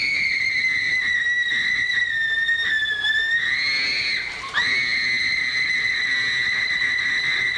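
A woman screaming, long and high-pitched, as a creature puppet swallows her in a horror-film take: one held scream breaks off about four seconds in and, after a quick breath, a second one starts.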